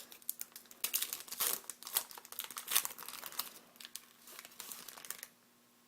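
A foil trading-card pack wrapper crinkling and rustling as it is handled, a rapid, irregular crackle that stops about five seconds in.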